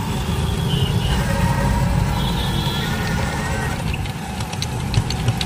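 City street traffic heard from a moving cycle rickshaw: a steady low rumble of passing auto-rickshaws, scooters and cars, with faint higher tones mid-way and light clicks and rattles near the end.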